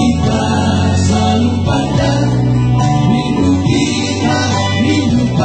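Several men singing together into microphones over an electronic keyboard accompaniment.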